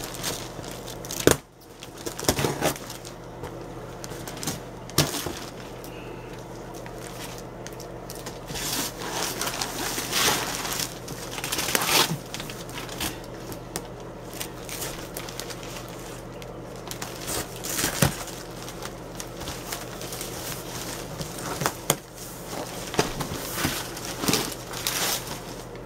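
Wrapping paper tearing and crinkling while a large cardboard box is cut and pulled open by hand. The rustling comes in irregular swells, with occasional sharp knocks against the cardboard.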